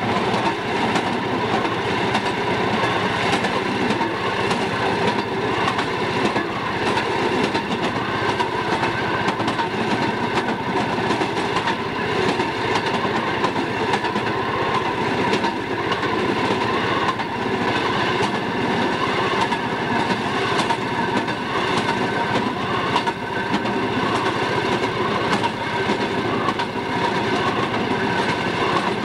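Railroad motorcar running along jointed track, heard from inside its cab: the engine drones steadily while the wheels click irregularly over the rail joints.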